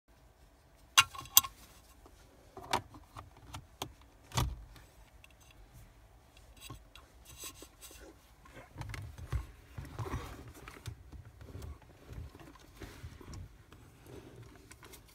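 Sharp plastic clicks and knocks as a spotlight's 12-volt plug is handled and pushed into a car's cigarette lighter socket, two sharp clicks about a second in and a few more knocks over the next seconds. Softer rustling and fumbling of the plug and spotlight follows.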